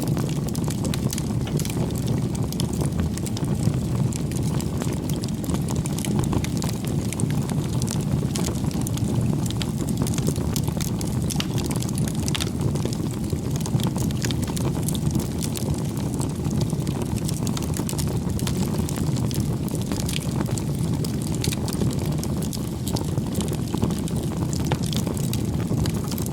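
Bonfire burning with a steady low rush of flame and frequent sharp crackles and pops of burning wood.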